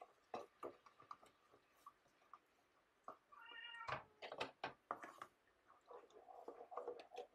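A metal spoon clicking and scraping in a pan while garlic and lemon juice are stirred together, with a cluster of louder taps a little past the middle. A brief high-pitched cry, like a cat's meow, comes about three seconds in.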